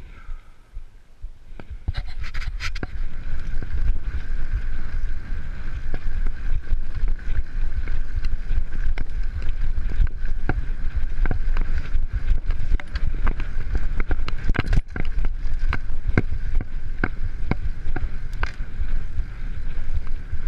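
Mountain bike rolling fast over a rough gravel trail, picked up by a handlebar-mounted camera: a heavy rumble from the tyres and frame with frequent sharp knocks and rattles over bumps. It gets loud about two seconds in as the bike picks up speed.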